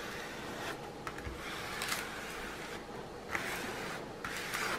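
A plastic straightener tool rubbed hard across the film-covered surface of a diamond-painting canvas in a few separate strokes, faint scraping swishes, pressing out an air bubble trapped under the canvas.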